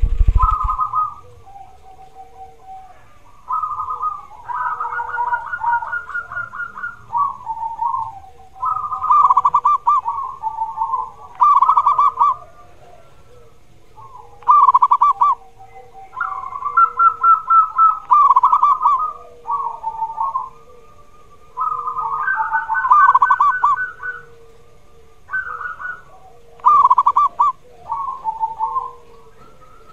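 Zebra dove (perkutut) singing its cooing song: phrases of fast, trilled coos, one to four seconds long, repeated every few seconds with short pauses between.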